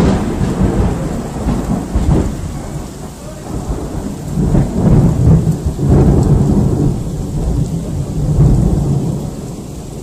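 Loud rolling thunder over steady rain, the rumble swelling several times and dying away near the end.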